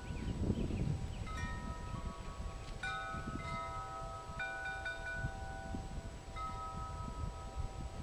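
Wind chimes ringing in a breeze: several notes at different pitches struck at irregular moments from about a second in, each ringing on. Under them is a low rumble of wind on the microphone.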